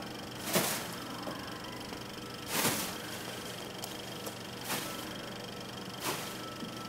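Silver Mylar pillows being batted about and rustling: four short swishing crinkles, about two seconds apart, over a steady hiss.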